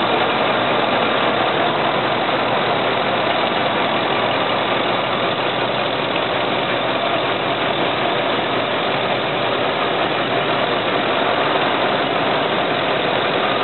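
2003 Dodge Ram 2500's 5.2-liter V8 engine idling steadily, heard close up in the open engine bay. It runs evenly and sounds great, in good running condition.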